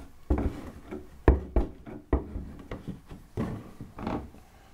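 Cardboard puzzle box being handled: several knocks and thumps, the loudest about a second in, with rustling, sliding sounds between them.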